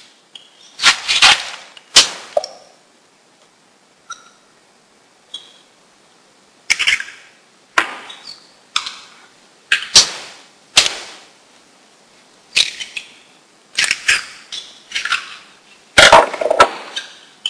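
Eggs being cracked open with a table knife over a plastic mixing bowl: a dozen or so sharp taps and knocks spaced through the quiet, the loudest near the end.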